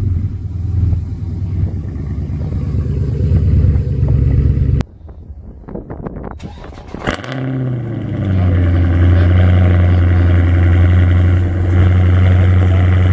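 Two 6.4-litre 392 HEMI V8s starting up one after the other. First a 2014 Dodge Charger SRT Super Bee with a Borla ATAK exhaust, just fired and settling to idle, cuts off abruptly about five seconds in. Then, about seven seconds in, a 2019 Charger Scat Pack with its mid-mufflers deleted cold-starts: its flare drops into a loud, steady idle that maxes out the phone's microphone.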